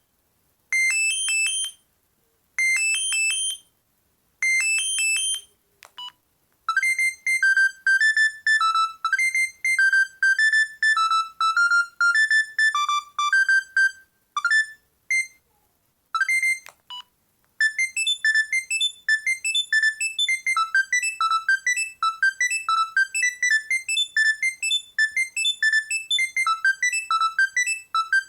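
Panasonic EB-GD93 mobile phone playing its built-in ringtones one after another. First comes a ring of rapid beeps repeated about every two seconds, then a single-note melody, a few short beeps, and another single-note melody.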